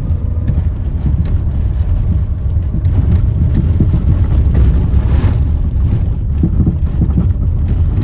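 Vehicle on the move, heard from inside: a loud, steady low rumble of road and engine noise with scattered knocks and rattles.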